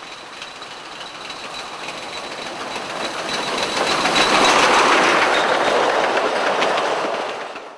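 Heritage train running on the track, wheels clicking over the rail joints, growing louder to a peak about halfway through and dropping away at the very end.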